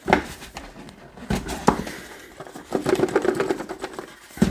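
Hands working the tight-fitting lid of a cardboard product box loose: cardboard rubbing and scraping, with a few sharp knocks and taps against the box.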